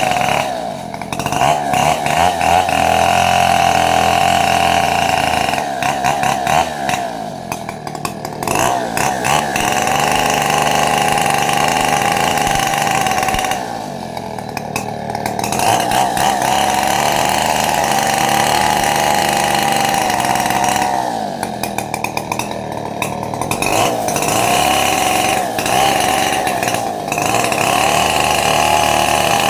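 Two-stroke chainsaw running at high revs, its pitch wavering as it cuts into wood. Several times it drops off briefly before picking up again.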